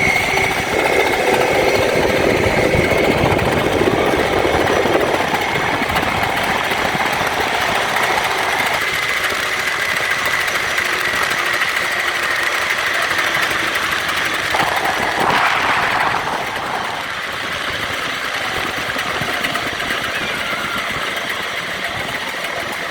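Tarabita cable car in motion: a steady mechanical run with a high whine from the cable and pulleys over a continuous rushing noise.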